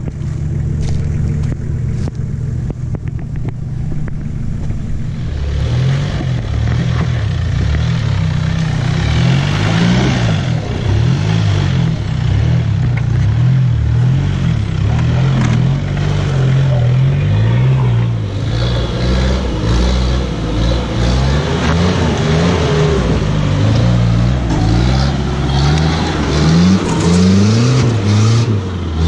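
4WD vehicle engine running steadily at first, then revving up and down repeatedly as it works over rough trail.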